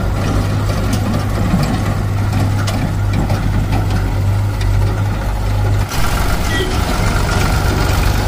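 HMT 3522 tractor's diesel engine running steadily at low revs as the tractor moves its trolley into position. The sound drops out briefly and changes character abruptly about six seconds in.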